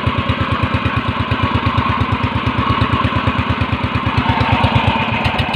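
Small engine of an outrigger fishing boat running steadily with a fast, even putter, over a hiss of wind and water.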